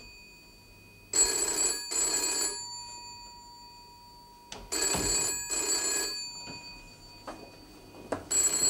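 A cream rotary-dial telephone's bell ringing in the British double-ring pattern: two short rings, a pause, then two more. The pairs come about every three and a half seconds, three times, with the last pair starting near the end. There are a couple of brief knocks between the rings.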